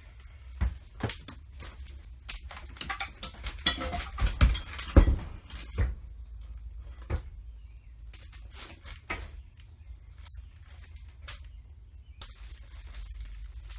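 Hard objects being handled and set down: a run of knocks and clinks, thickest and loudest about four to five seconds in, then a few scattered taps over a low steady hum.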